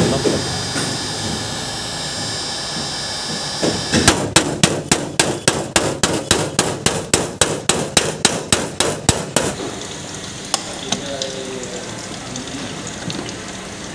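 A heat gun blows steadily, then hammer blows ring on a car door's sheet metal, three or four a second for about five seconds: a dent being knocked out of the door panel.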